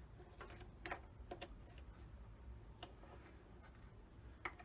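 Faint, scattered clicks and light knocks from hands handling and adjusting a bandsaw's blade guide post, about half a dozen spread unevenly over a few seconds.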